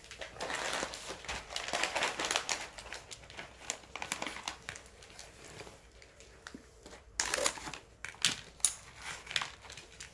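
Plastic dog food bag crinkling in irregular bursts as it is handled.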